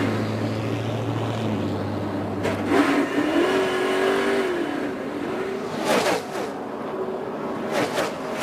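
NASCAR Cup cars' V8 engines running at speed, the engine note swooping up and down as cars go by, with sudden sharp rushes of noise about three, six and eight seconds in.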